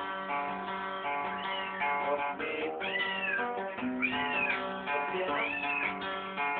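Acoustic guitar playing held notes and chords, with a cat meowing several times over it in drawn-out calls that rise and fall in pitch.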